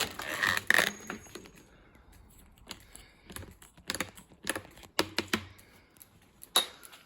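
Handling noise: a loud rustle at the start, then irregular light clicks and knocks as the camera is moved under a bicycle and around its frame.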